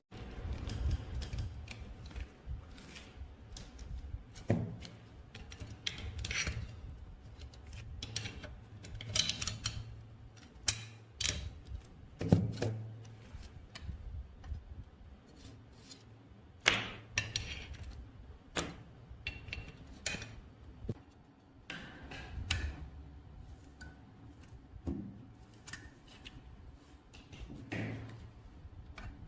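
Irregular clicks, taps and knocks of small metal gun parts being handled and worked by hand, with a few louder single strikes and some scraping between them.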